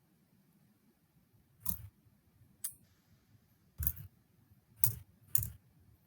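Five separate clicks at uneven spacing, each with a soft low thump.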